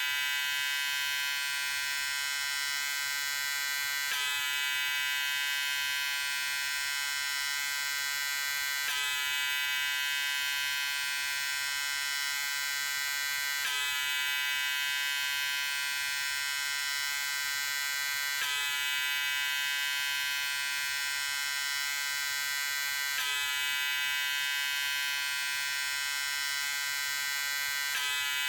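Electric shaver running steadily, a constant buzz with many overtones. There is a slight jump in the sound about every five seconds, where the recording repeats.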